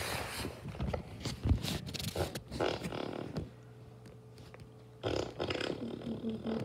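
A black dog lying down makes a low, rapidly pulsing rumble in the second half. Before that, rustling and scraping close to the microphone.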